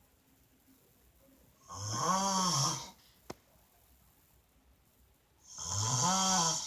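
A woman snoring in her sleep: two long snores about four seconds apart, each a pitched snore that rises and then falls in tone.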